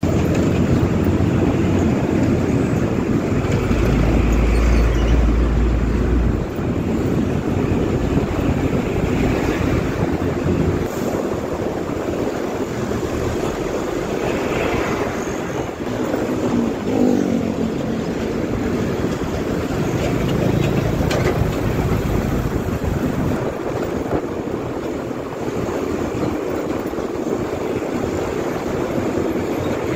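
Road noise from a moving motorcycle riding among container trucks: a steady mix of wind rush, engine and tyre rumble, with a heavier low rumble from about four to six seconds in.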